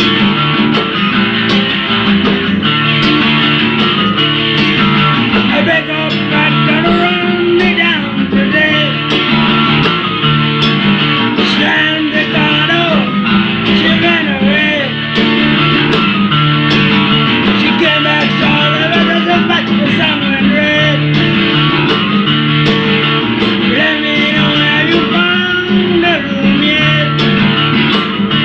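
Rock music: guitars holding dense chords, with a singing voice gliding in pitch over them for much of the passage.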